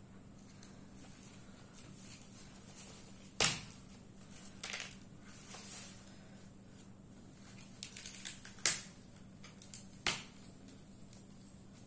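Dried, hardened cow dung being broken and picked apart by hand: a few sharp cracks among scattered crumbling clicks. The loudest crack comes about a third of the way in, and two more come close together near the end.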